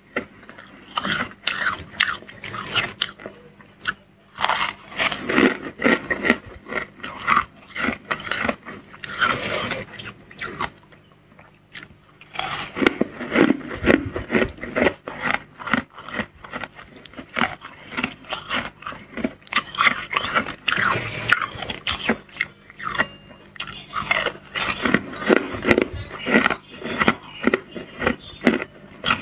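A metal spoon scraping and crunching through thick built-up freezer frost, a fast irregular run of crisp crunches with a short lull about eleven seconds in.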